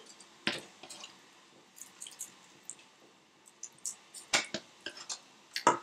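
Green epis seasoning paste being spooned onto raw meat and seafood in an aluminium pot and worked in with a wooden spoon: a few scattered wet squishes and light clicks.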